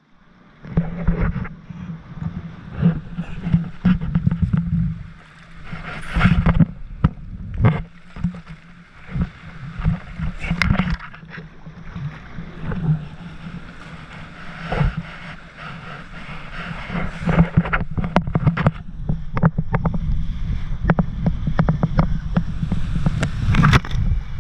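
Rushing water and wind on the microphone of a camera riding down a fiberglass water slide on an inner tube, with frequent sharp knocks as the tube bumps along the slide. The sound grows louder over the last several seconds and ends in churning splashes as the tube drops into the pool.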